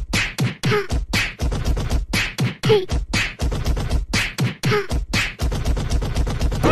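Beatboxing: rhythmic vocal percussion of bass thumps and hissing snare-like hits, about three a second, with a short falling tone about once a second.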